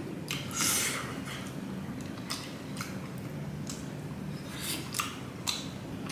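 A person eating fried masala chicken and biryani rice by hand: chewing and lip smacks heard as irregular short sharp clicks, with one longer, noisier burst about half a second in.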